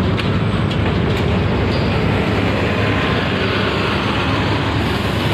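A large coach bus's diesel engine running close by as it passes, a steady loud rumble.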